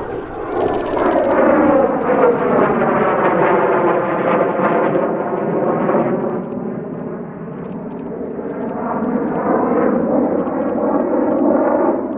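Kawasaki T-4 jet trainer's twin turbofan engines as it manoeuvres overhead. The jet noise swells over the first couple of seconds, eases about seven seconds in, then builds again near the end, with a sweeping, phasing shift in tone as the jet passes.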